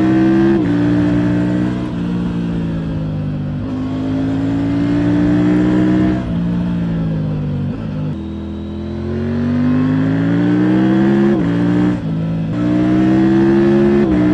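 Motorcycle engine accelerating hard through the gears: the pitch climbs and drops sharply at each gear change. It eases off once midway, then pulls up through the gears again.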